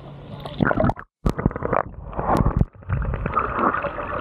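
Sea water sloshing and gurgling around a waterproof camera as it is dipped under the surface, in uneven swells with a brief cut-out about a second in.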